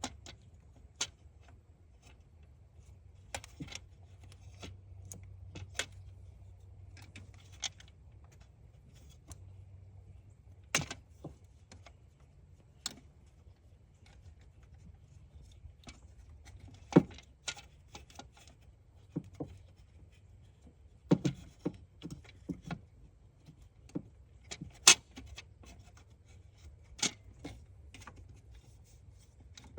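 Irregular sharp clicks and light metallic clinks, from hand work on the engine's distributor, with the loudest knocks in the middle and latter part, over a faint steady low hum.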